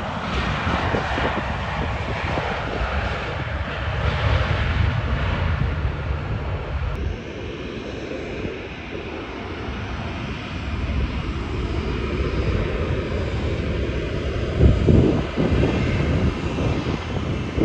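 Twin-engine Airbus narrow-body airliners' jet engines rumbling steadily. First an airliner rolls out along the runway after landing. After a cut about seven seconds in, a second airliner is heard on final approach and touchdown, with a few louder low surges near the end.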